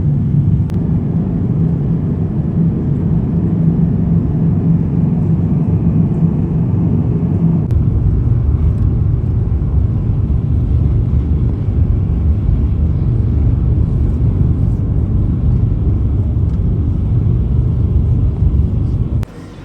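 Steady low rumble of a vehicle in motion, heard from inside it; a low hum in the rumble stops about eight seconds in.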